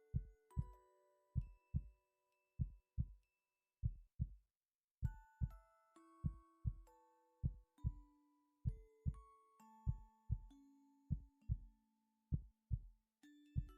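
A person's heartbeat: slow, steady paired lub-dub thumps about once a second, with soft chime-like music notes ringing over them.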